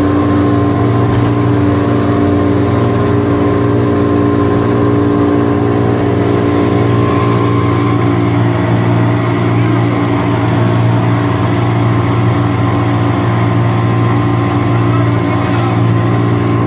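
Boat engine running at a steady speed, a loud, constant drone heard from on board.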